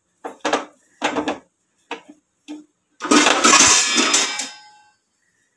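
Metal parts of a gas stove burner knocking and scraping as it is wiped: several short knocks, then a louder metallic clatter about three seconds in that rings on for over a second before dying away.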